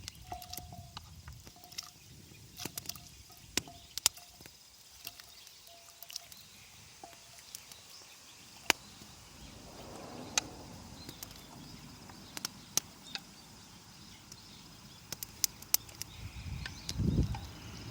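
Wood fire crackling, with irregular sharp pops and clicks over a faint outdoor background, and a dull low thump near the end.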